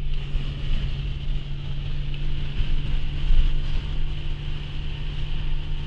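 Steady car engine hum and road noise heard from inside the moving vehicle's cabin, with a constant hiss over it.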